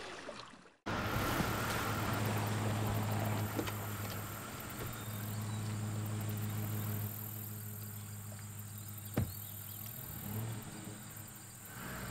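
Steady low engine hum, as of a motor idling, with a light hiss over it. It cuts in suddenly about a second in after a moment of silence. A single sharp click comes near the nine-second mark.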